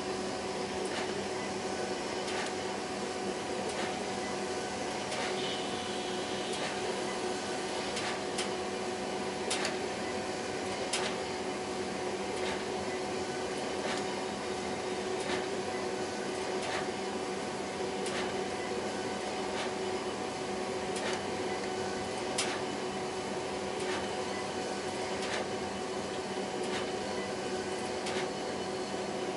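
HP Designjet 5000ps large-format inkjet printer printing: a steady mechanical whir with a hum, and a faint click that repeats about every second and a half.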